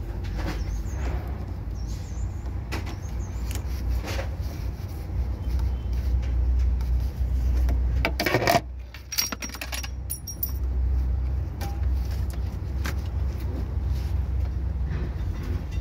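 Metal hand tools clicking and clinking against a diesel engine's fuel injection pump and fittings, with a cluster of sharp clinks about halfway through, over a steady low rumble.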